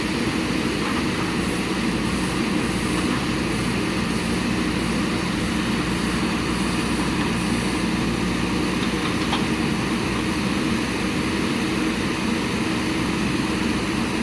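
Heavy machine's diesel engine running steadily at an even pitch, with no change in speed.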